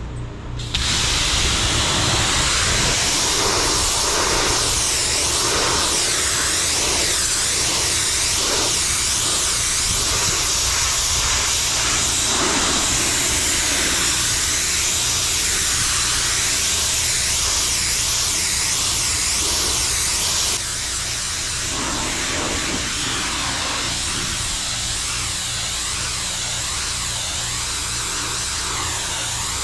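Pressure washer jet spraying roof tiles: a loud, steady hiss of water that starts about a second in and drops a little in level about two-thirds of the way through, over a steady low engine drone.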